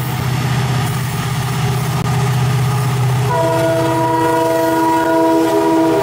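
Indian Railways diesel locomotive throbbing low and steady as a freight train rolls past. About three seconds in, a diesel locomotive horn starts a long blast of several notes at once, held to the end.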